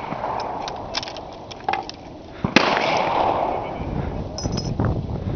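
Mauser K98 bolt-action rifle firing one sharp shot about two and a half seconds in, with about a second of echo after it. A few light clicks come before the shot.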